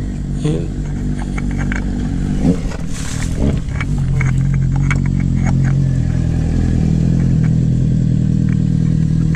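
A steady low hum, like a motor or engine running, with light clicks and clinks of the oil filter and tools being handled over the first six seconds or so.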